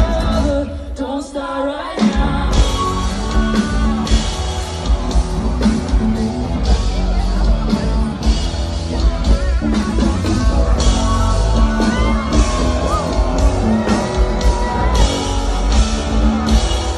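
Live pop-rock band playing with a woman singing lead, drums, bass and electric guitar heard loud from the crowd. The bass and drums drop out briefly near the start, and the full band comes back in about two seconds in.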